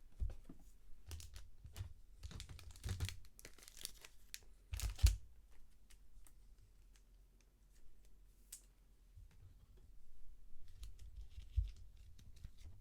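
Crinkling and tearing of card packaging, wrappers and plastic handled in bursts, with scattered small clicks. The busiest handling is in the first few seconds and again near the end.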